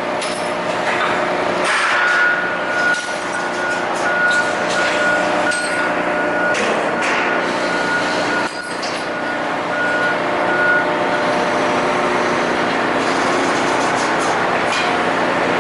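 Amada Vipros King CNC turret punch press running: a steady machine hum with scattered sharp knocks. A high electronic beep sounds in short repeated pulses from about two seconds in until about eleven seconds.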